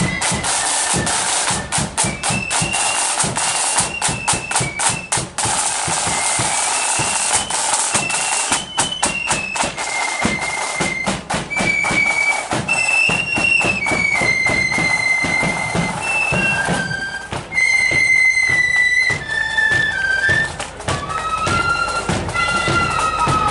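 Marching flute band playing a tune: flutes carry a high melody in unison over rapid side-drum strokes and a bass drum beat.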